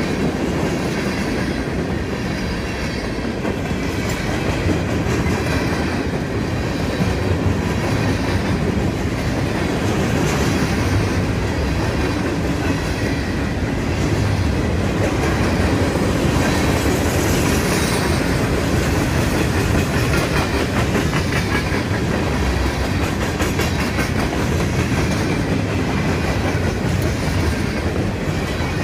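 A freight train's cars (boxcars, gondolas and centerbeam flatcars) rolling past: a steady rumble of steel wheels on rail with clickety-clack over the rail joints.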